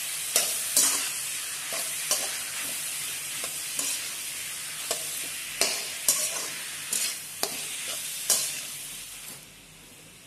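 Sliced onions, tomatoes and green chillies sizzling in oil in a kadai as a metal spatula stirs them, with irregular knocks and scrapes of the spatula against the pan. The sizzle and knocking drop away near the end.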